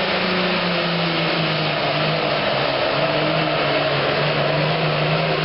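Super Farm class pulling tractor's turbocharged diesel engine running hard, a steady loud drone whose pitch dips slightly about three seconds in.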